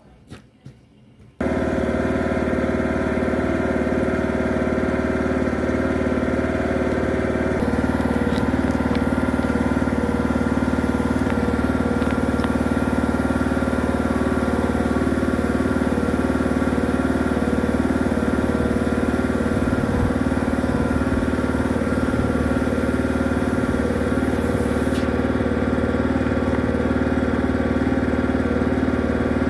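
A small engine-driven machine, likely the drain jetter's motor, starts up abruptly about a second in and runs steadily at an even idle. From several seconds in until near the end a high hiss rides on top of it.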